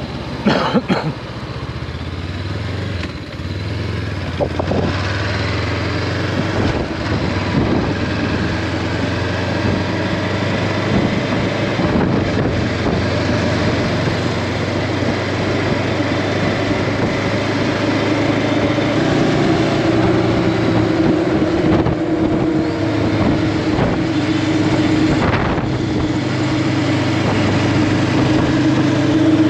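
Honda CB500X parallel-twin engine running steadily under a steady rush of noise as the motorcycle is ridden. It grows gradually louder over the first half, and a stronger mid-pitched engine tone comes in a little past halfway.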